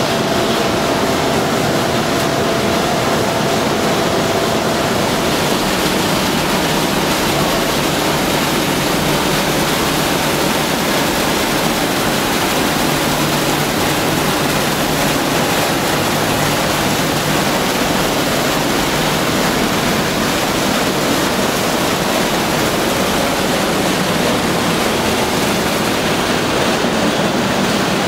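Thick stream of water pouring from a large hose and splashing into a concrete sewer chamber: a loud, steady rushing noise.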